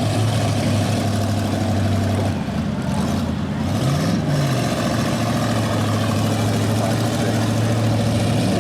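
Demolition derby car engines running steadily, one briefly revving up and back down about four seconds in.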